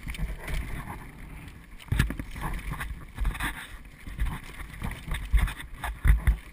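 Child's bicycle trailer rolling over cracked asphalt behind a bicycle: a low rumble with irregular knocks and rattles as it jolts over the bumps, loudest about two seconds in and near the end.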